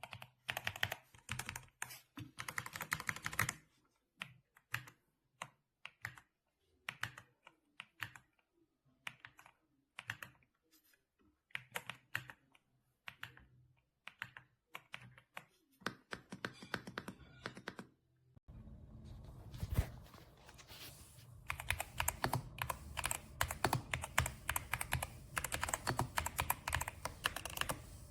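YUNZII B75 PRO gasket-mount mechanical keyboard being typed on: short bursts and single key presses at first, then steady fast typing from about two-thirds of the way through, with a faint background hiss.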